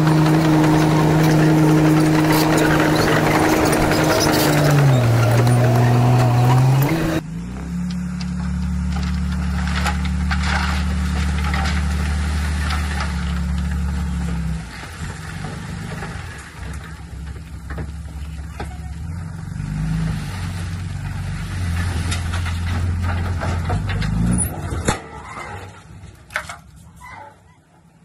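Heavy diesel engines of a bulldozer and a dump truck running. The first engine is loud and steady, its pitch drops for a moment and climbs back. About a quarter of the way in the sound switches abruptly to a quieter diesel engine whose revs rise and fall, fading out near the end.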